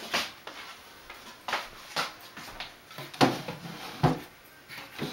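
Half a dozen light knocks and clicks at irregular intervals, one every second or so, over a faint room hiss.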